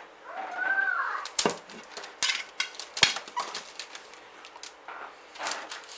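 Enamel mixing bowl knocking and scraping on the bench while the meatloaf mixture is turned out onto baking paper: several sharp knocks and rustles, a cluster in the middle and another near the end. A brief wavering tone, rising then falling, comes about half a second in.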